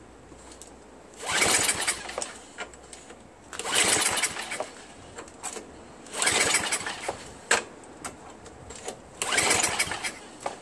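Four pulls on the recoil starter of a Craftsman 524 snowblower's 5 hp Tecumseh engine, each about a second of rope whir and cranking, with the engine never catching. The engine has very low compression, which the owner suspects comes from a blown head gasket.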